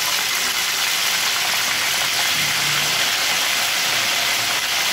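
Fish deep-frying in a pan of hot oil, a steady loud sizzle.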